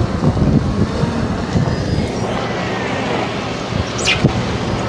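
Harley-Davidson motorcycle's air-cooled V-twin engine turning over and struggling to start: a steady, rough mechanical rumble. The engine would not start readily.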